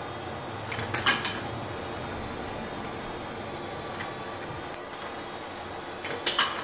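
Homemade automated rifle-brass annealer running: a steady hiss and hum under sharp metallic clicks and clatter about a second in, a single click around four seconds, and another clatter near the end, as the motor-driven wheel moves brass cartridge cases along and drops them.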